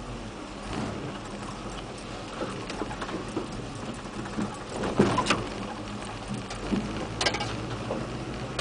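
Inside the cab of a lifted 4x4 pickup crawling a rough trail: a steady low engine drone with irregular knocks and rattles as the truck jolts over the ground. The loudest knock comes about halfway through, with another sharp one a couple of seconds later.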